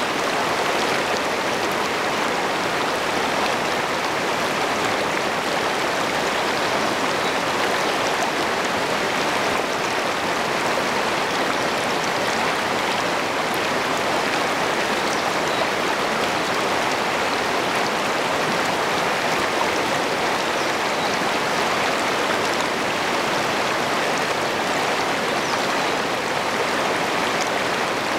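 Shallow rapids of a rocky river rushing and splashing close by, a steady full rush of white water over stones with no let-up.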